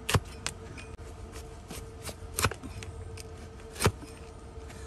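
Large hoof-trimming knife shearing through the overgrown horn of a donkey's hoof on a wooden block: sharp cracks, three strong ones at uneven intervals with fainter clicks between, over a faint steady hum.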